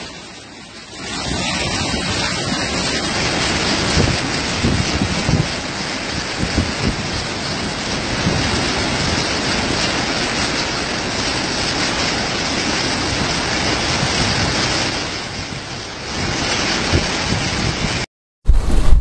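Steady rushing noise of storm rain and wind over floodwater. It dips briefly just after the start and drops out for a moment near the end.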